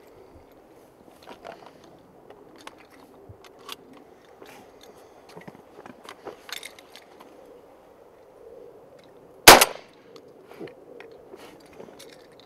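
A single shotgun shot about nine and a half seconds in, fired with an Eley VIP Steel steel-shot cartridge, by far the loudest sound. Faint clicks and knocks are scattered around it.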